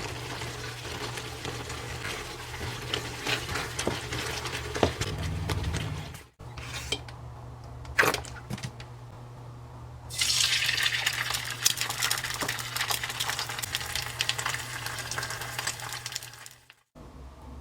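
Cooking in a pan: a utensil clinking and scraping against the pan over a steady low hum. About ten seconds in, a louder sizzle as food fries in the hot pan. Two short breaks cut the sound.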